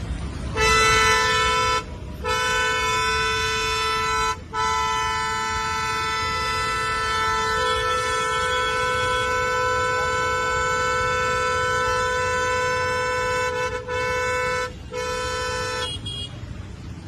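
Car horn of a black Hyundai Creta honking non-stop: one steady blaring tone held for about fifteen seconds. It has three brief breaks, two in the first few seconds and one near the end, and stops shortly before the end. A low traffic rumble runs underneath.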